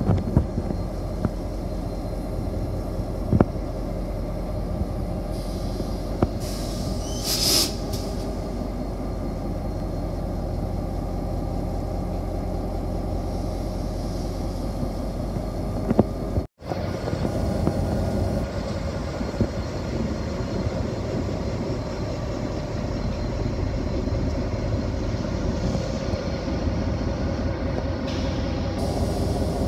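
Diesel-electric freight locomotive rolling slowly past, its engine giving a steady low rumble with a few sharp clicks. A short hiss comes about seven seconds in, and the sound cuts out for an instant about sixteen seconds in.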